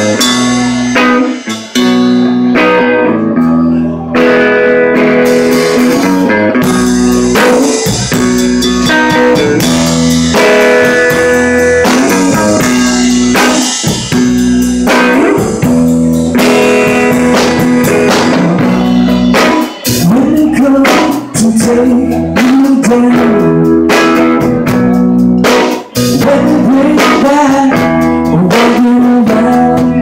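Live band playing loudly through amplifiers: electric guitar over a drum kit.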